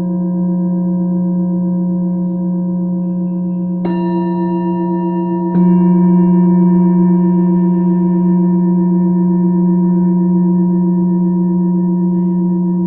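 Several tuned metal healing instruments ringing together in steady, overlapping tones, struck again about four and five and a half seconds in; each strike adds fresh high overtones, and the second makes the deep tone louder.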